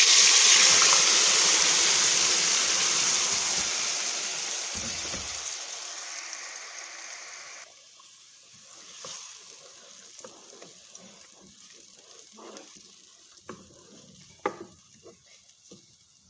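Blended tomato, onion, garlic and pepper purée sizzling loudly as it hits hot olive oil, the sizzle fading steadily as the oil cools. About eight seconds in it drops off abruptly, leaving a faint crackle with scattered light pops.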